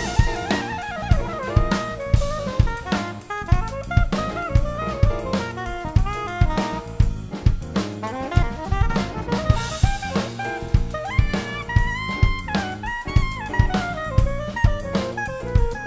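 Acoustic drum kit played live, with snare, bass drum and cymbals, along with a recorded big band backing track in which saxophones and brass play the melody lines.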